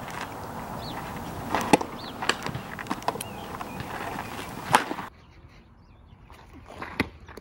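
Sharp smacks of a softball landing in leather fielding gloves during infield throwing practice, the loudest a little under five seconds in and a fainter one near the end, over a steady outdoor hiss that cuts off about five seconds in.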